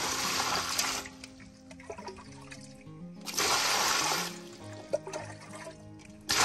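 Water poured from a plastic dipper onto bell peppers and chillies in a large metal basin, splashing in two pours of about a second each: one at the start, one just after three seconds in. Background music plays underneath.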